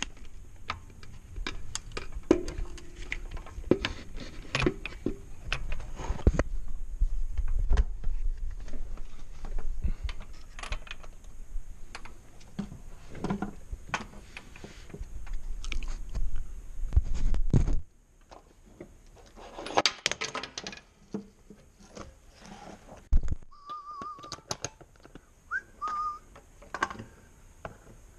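Hand tools and metal parts clicking and clinking irregularly as a knock sensor is fitted back into an engine block, with a low rumble for the first two-thirds that stops suddenly. Later come two short wavering high tones, like a whistle.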